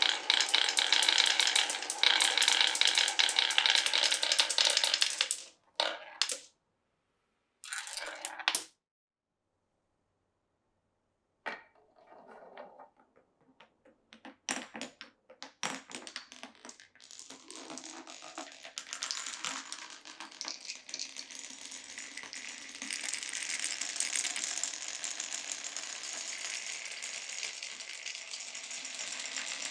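Marbles rolling and clattering along a wooden marble run. A dense rolling clatter breaks off after about five seconds into a few separate clicks and a short silence. Scattered clicks then build back into a steady rolling clatter over the last ten seconds or so.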